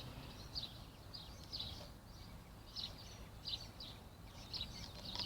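Birds chirping in the background: faint short chirps repeating irregularly, several a second.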